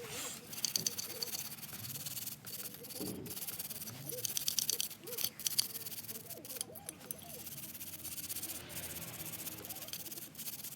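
Hand work on small parts: irregular rubbing and scraping with light rattles and clicks.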